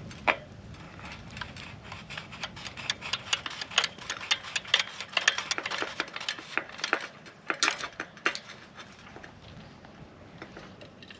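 Rapid, irregular metallic clicking and ticking as a metal sprinkler riser is twisted into the fitting of an aluminium irrigation pipe, the clicks thinning out near the end.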